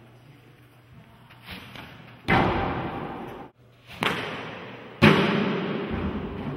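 Three loud, sharp bangs of hard impacts, the last the loudest, each echoing as it dies away over a second or so.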